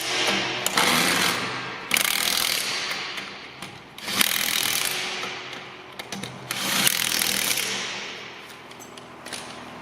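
Impact gun hammering wheel nuts tight, in a run of bursts of a second or two, each starting sharply and fading away.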